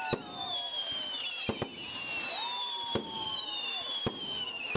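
Fireworks going off: several sharp bangs, two in quick succession near the middle, over a constant chorus of high whistles that slowly fall in pitch.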